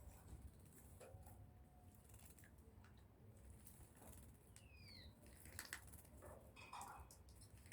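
Faint patter and small clicks of pet birds splashing in their bath water, with one short falling chirp about five seconds in.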